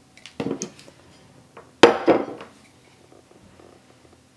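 A camera lens and a plastic zip-gear strip being handled, giving two short clattering knocks. The second, louder one comes a little under two seconds in.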